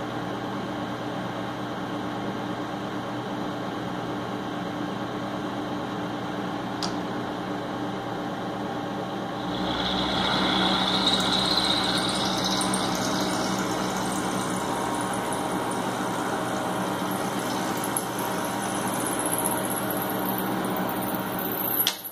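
Milling machine running as it mills a miter in a metal block. About nine seconds in it gets louder and a high whine starts, rising in pitch. The sound drops sharply at the very end.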